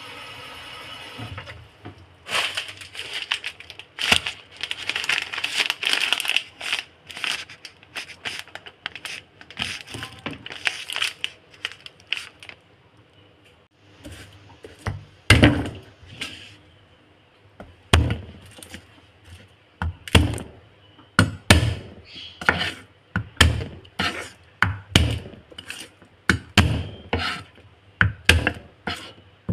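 Tap water running into a stainless saucepan briefly, then about ten seconds of dense crackling and tapping. From about halfway, a chef's knife chopping garlic cloves on a plastic cutting board: sharp knocks about once a second.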